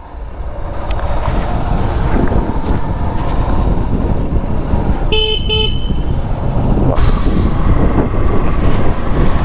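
Motorcycle riding: wind buffeting the microphone over the running engine, growing louder in the first second or two as the bike picks up speed. About five seconds in, a vehicle horn gives two short beeps.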